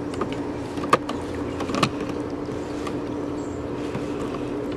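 Gasoline pouring from a gas can into a lawnmower's fuel tank, over a steady low hum, with two short knocks about one and two seconds in.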